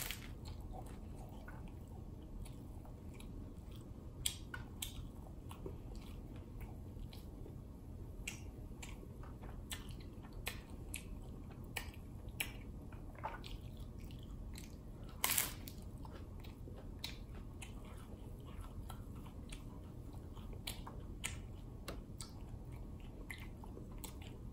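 A person biting and chewing a crunchy hard-shell taco close to the microphone: scattered small crunches and mouth clicks over low steady background noise, with one louder crunch about fifteen seconds in.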